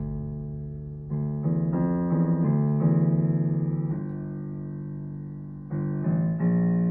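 Piano playing a slow passage of chords, each struck and left to ring and fade, with a group of quicker chords near the start and louder ones struck near the end.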